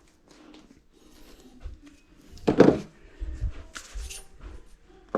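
Handling noises from bicycle assembly: scattered light clicks and knocks of parts being handled, with one louder, short clunk about two and a half seconds in.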